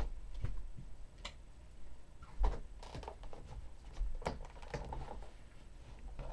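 Handling noises while a lamp is being adjusted: scattered light clicks and a few soft knocks, the strongest about two and a half seconds in and again about four seconds in, over a faint low rumble.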